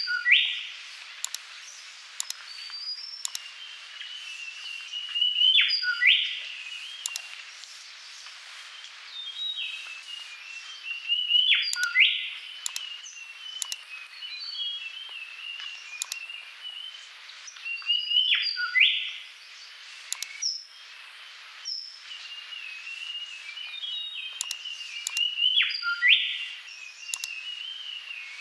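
Background recording of birdsong: continuous high chirps and twitters, with a louder phrase that recurs about every six to seven seconds, like a looped nature track.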